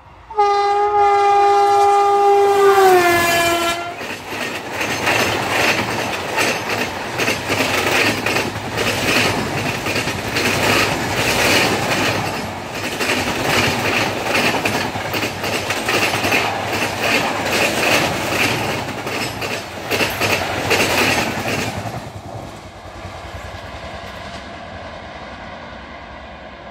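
WAP-4 electric locomotive sounding its horn for about three seconds, the pitch dropping at the end as it passes. Then the express's coaches roll past with a steady rumble and wheels clattering on the rails, fading away about twenty seconds in as the train moves off.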